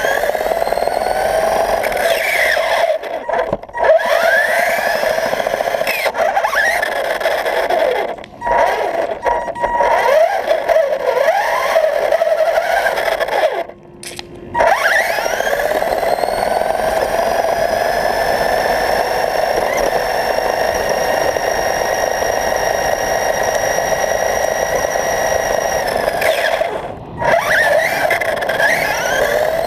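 Radio-controlled car's motor whining at a steady high pitch. It cuts out briefly about four times, and each time the whine sweeps back up in pitch as the car accelerates again.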